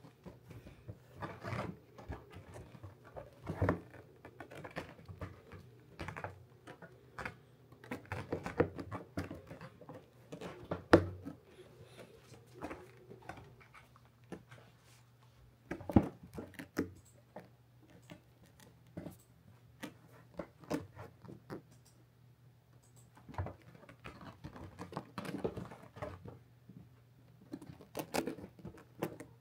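A hamster moving about inside a felt bed: irregular rustling, scratching and patter, with scattered sharp clicks, the loudest about eleven and sixteen seconds in.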